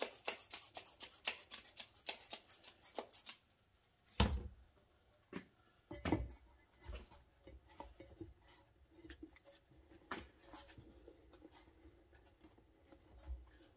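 Trigger spray bottle of degreaser squirted rapidly, about five squirts a second for roughly three seconds, wetting a tire and rim as bead lubricant. Then two dull thumps and scattered clicks and knocks as the tire is worked onto the rim on a manual tire changer.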